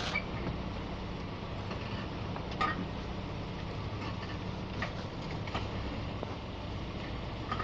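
Car suspension creaking: short, irregular squeaks at uneven gaps over a steady low rumble, the sharpest about two and a half seconds in.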